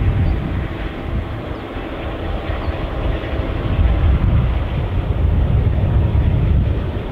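EMD 81 class diesel locomotive hauling a freight train on approach, its engine a low rumble that swells about halfway through.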